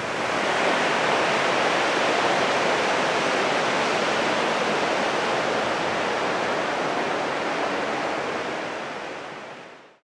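Steady, even wash of ocean surf breaking on the beach, fading out near the end.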